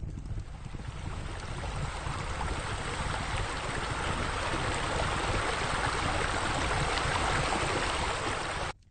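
Rushing, splashing water from pool bubbler jets, growing steadily louder and cutting off abruptly near the end.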